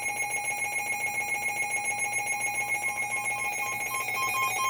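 Weather alert radio alarm sounding a steady buzzing alert tone. About three and a half seconds in, a second alarm joins it with rapid on-off beeps, signalling an incoming NOAA Weather Radio warning.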